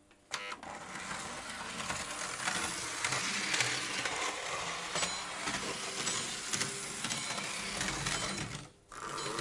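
Märklin HO model railcar running along metal track: a dense mechanical clatter of wheels and motor with many small clicks, dipping briefly near the end.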